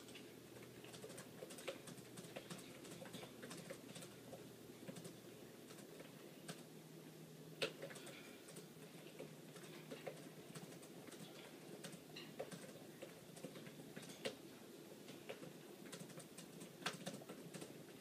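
Faint, irregular clicks and light taps, about one to three a second, over quiet room tone. The sharpest click comes a little before the middle.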